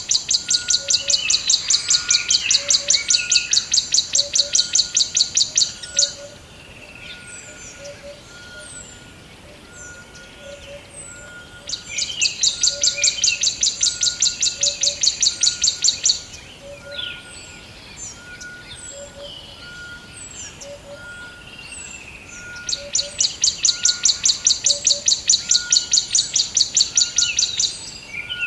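Birds calling and chirping. The loudest part is a high, rapid trill of quick repeated pulses lasting about five seconds, which comes three times. Between the trills come scattered short falling chirps, with a soft note repeating about once a second underneath.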